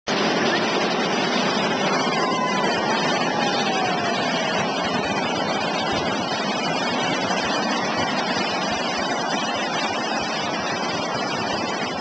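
Steady rushing of wind and surf, with a faint falling whistle a couple of seconds in.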